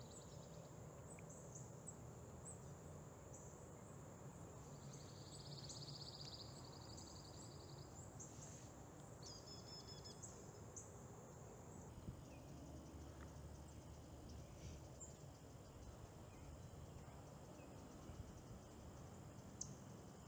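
Near silence: faint outdoor ambience with a low steady background and distant small high chirps, including a couple of short, rapid trills.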